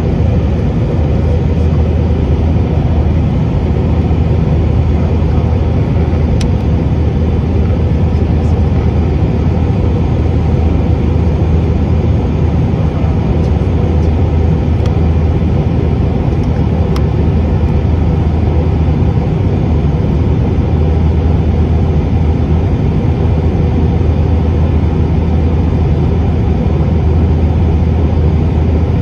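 Jet airliner cabin noise from a window seat over the wing: the engines and rushing air make a loud, steady drone with a strong low hum.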